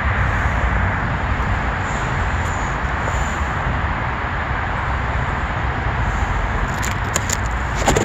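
Steady outdoor city ambience: a continuous noisy rush with a low rumble, and a few sharp clicks near the end.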